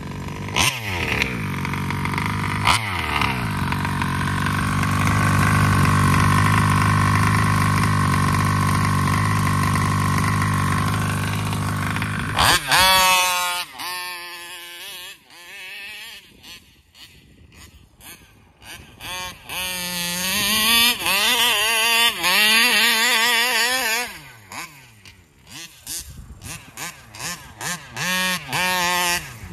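Taylor 35cc reed-valve two-stroke engine in a gas RC car, running steadily for about twelve seconds. The car then takes off with the revs rising and falling quickly as it is driven around, fading when it is far off and coming back louder, with choppy on-off throttle near the end.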